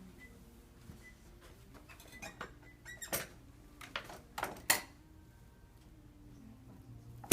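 A scattering of short, sharp clicks and knocks with faint squeaks, in two small clusters through the middle and one louder knock right at the end.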